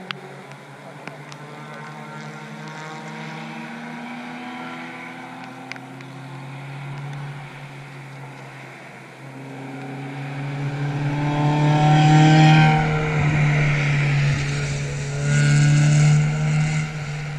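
Racing cars of the Spec Miata and B-Spec classes running on a wet circuit. Engines are heard further off at first. Then two cars pass close by, the loudest about twelve and sixteen seconds in, each engine note rising and then falling in pitch as it goes past.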